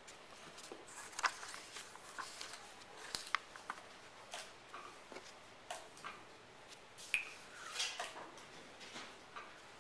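Felt-tip marker and paper handling on a drawing board: brief scratchy marker strokes, a sheet of paper rustling as it is lifted and shifted, and scattered light taps and clicks.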